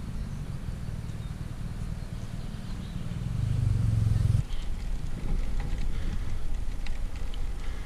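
Wind rumbling on the microphone, growing louder. About halfway through it changes suddenly to wind and road noise from a bicycle climbing on asphalt, with scattered light clicks.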